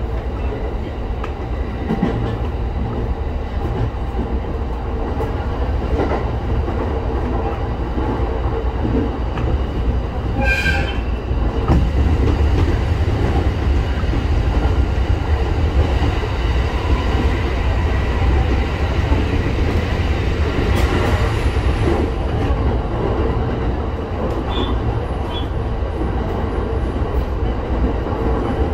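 Local electric train running on the line, heard from on board: a steady low rumble of wheels and motors with occasional faint rail-joint knocks. A brief high-pitched sound comes about ten seconds in.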